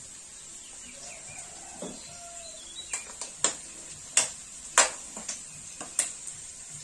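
A run of sharp, separate clicks and taps of kitchen utensils against a small seasoning container while the wok is being seasoned, about eight in three seconds, the loudest near the middle. Faint bird chirps sound in the first couple of seconds, over a steady faint hiss.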